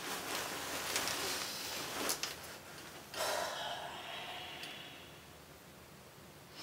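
A person breathing heavily, with a long sigh-like exhale about three seconds in that fades away. Before it there are a couple of soft clicks or rustles.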